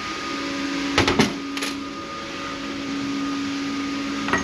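Steady mechanical hum with a few sharp metallic clicks and clinks about a second in and again near the end, from transmission parts being handled on the bench.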